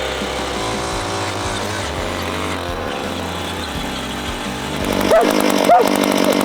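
Small gasoline engine running, revving up louder with rising pitch about five seconds in.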